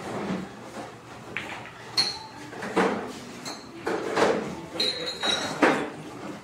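Pool balls on a bar pool table after a shot: a string of sharp clacks and knocks as the balls strike each other and the cushions, some with a short ringing click.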